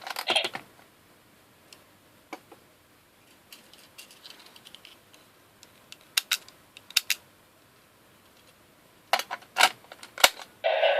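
Scattered sharp clicks and clacks of hard plastic toy parts being handled, in small groups with quiet between. Near the end a toy's electronic sound starts up.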